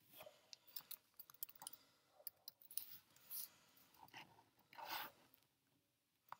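Faint, irregular clicking of a MacBook's keyboard and trackpad as a file name is typed and confirmed. Two soft rustles come about a third of the way in and again near the end.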